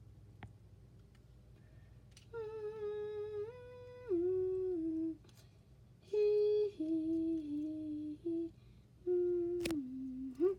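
A person humming a simple tune in held notes that step up and down, in three short phrases with pauses between. A single sharp click near the end.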